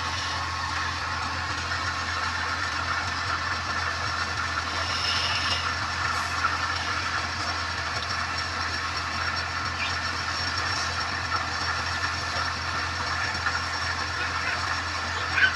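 Woodturning lathe running steadily: a constant motor hum with an even hiss and light rattle over it.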